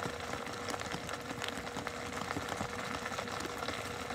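Steady mechanical hum with a constant faint tone and light scattered ticks, engine-like in character.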